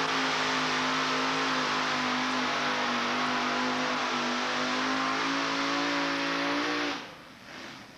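A pulling vehicle's engine held at full throttle, a loud steady drone with a lot of hiss over it, as it drags a weight-transfer pulling sled down the track. The engine sound drops away suddenly about seven seconds in.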